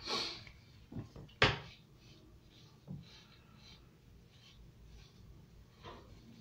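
Wooden Carbon AR Ndevu beard comb being handled, with a few sharp knocks in the first two seconds, the loudest about a second and a half in. Then faint repeated strokes as the comb is drawn through a dry beard with no product in it.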